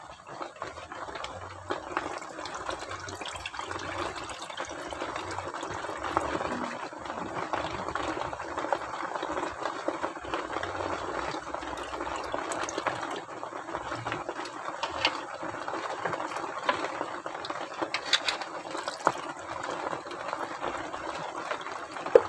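Hands washing fish roe in water in an aluminium bowl: steady sloshing and swishing of water with small clicks, and a sharp click near the end.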